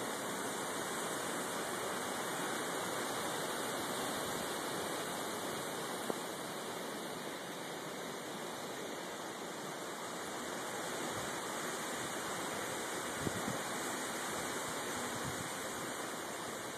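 Storm wind rushing steadily through the leaves of tall trees, a constant heavy hiss that swells a little, with a couple of faint knocks.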